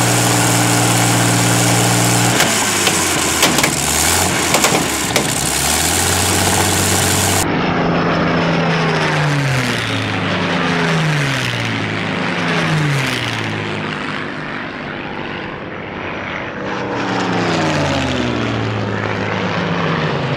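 Rolls-Royce V12 piston aero engine running on a stand with its propeller turning: first at a steady speed, then changing revs a couple of seconds in. After a cut, propeller aircraft fly low past several times, each engine note falling in pitch as it goes by.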